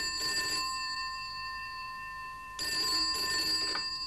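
Desk telephone bell ringing twice, the second ring about two and a half seconds after the first. Each ring is a short rattling trill that leaves the bell tone hanging and fading.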